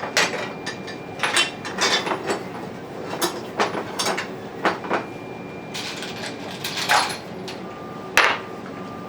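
Metal bolts and washers clinking and knocking as they are handled and fitted into the drive assembly: a string of irregular sharp clicks and taps.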